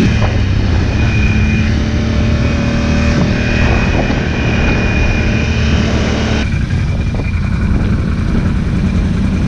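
Quad ATV engine running steadily under way, with wind rushing over the microphone; the higher part of the noise drops off abruptly about two-thirds of the way through.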